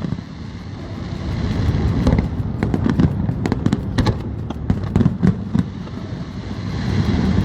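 Fireworks display going off continuously: many sharp cracks and pops over a steady low rumble of shell bursts.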